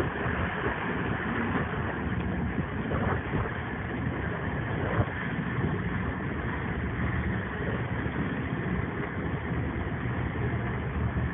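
A boat's engine running steadily, with wind and rushing water from the hull's wake over it.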